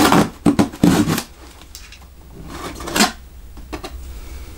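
Knife cutting through packing tape on a cardboard box: three quick, scraping cuts in the first second or so, then another about three seconds in, with cardboard rustling between.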